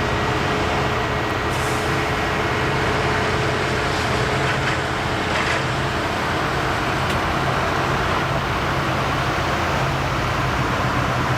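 Steady running noise of engines, with a constant low hum and a faint steady whine.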